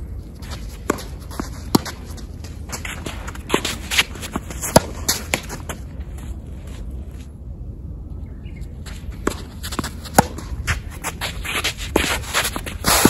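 Tennis point being played: sharp pops of racket strings striking the ball, several over the rally, with shoe scuffs and footsteps on an artificial-grass court in between.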